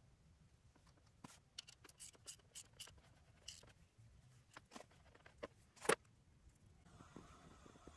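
Faint scattered clicks and taps of small metal parts: a bolt and nut being fitted through the ring-terminal lugs of two 4-gauge battery cables to join them, with a sharper click about six seconds in. A soft hiss comes in near the end.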